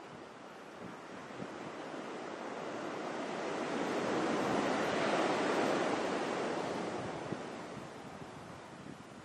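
Ocean surf: a wave breaks and washes up the sand, swelling to its loudest about halfway through and then fading, with light wind buffeting the microphone.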